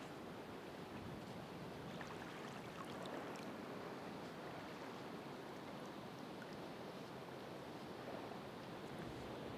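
Ocean waves washing on the shore: a steady wash of surf that swells gently, with a few faint ticks a few seconds in.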